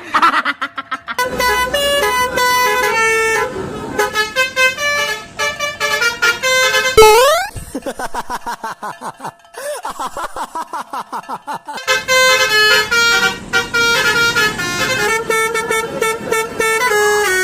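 Multi-tone telolet bus horn (Basuri type) playing a tune of stepped notes. About seven seconds in there is a sharp rising glide, followed by a few seconds of fast stuttering notes before the stepped tune returns.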